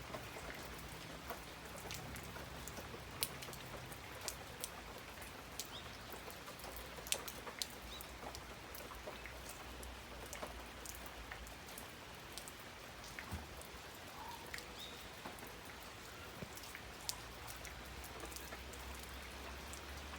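Steady rainfall: an even hiss of rain, with individual drops landing as irregular sharp ticks on a nearby surface.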